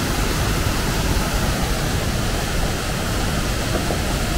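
Steady rush of a mountain-stream waterfall, white water cascading down a rock chute.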